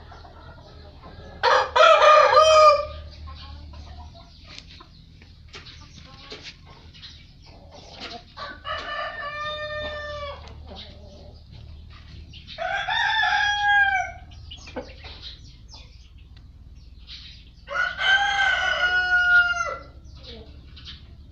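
Brahma roosters crowing four times, each crow lasting about one and a half to two seconds, the first the loudest. Softer clucking from the flock comes between the crows.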